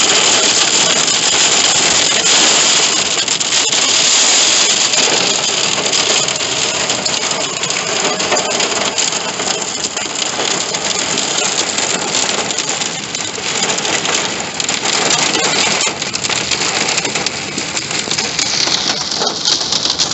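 Heavy rain pelting the car's roof and windshield, heard from inside the car: a dense, steady hiss thick with tiny taps.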